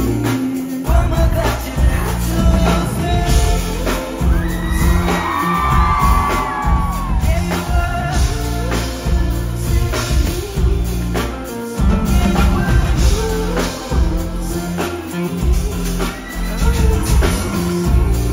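Live pop band playing a song: a male lead vocal over drums, heavy bass and keyboards, in a large hall.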